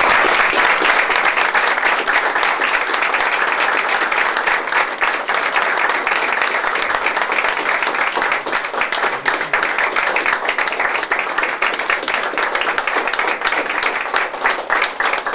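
A small group of people applauding: steady, dense hand-clapping.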